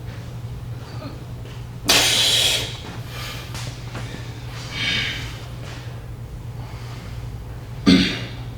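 A person breathing hard after a strenuous lift. There is a loud, forceful exhale about two seconds in, a softer breath near five seconds, and a sharp cough near the end, over a steady low hum.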